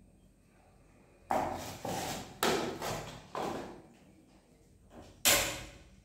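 Cooking noises at a gas stove: about six sharp, noisy bursts over four seconds, each dying away within half a second, the loudest near the end.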